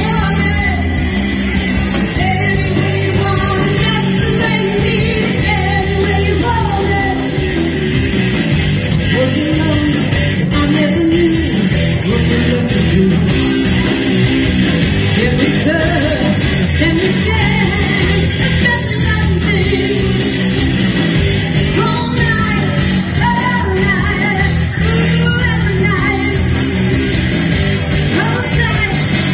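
Live band playing loudly through amplifiers, with a singer's voice over an electric guitar.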